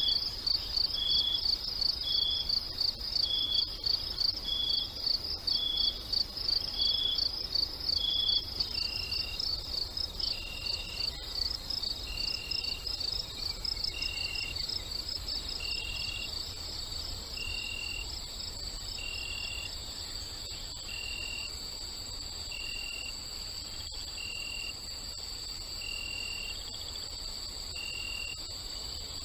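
Crickets chirping at night: a fast, high, pulsing trill that smooths into a steadier trill about nine seconds in, over short even chirps at a lower pitch every second or two.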